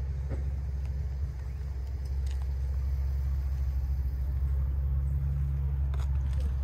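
A steady low rumble, growing a little louder about two seconds in.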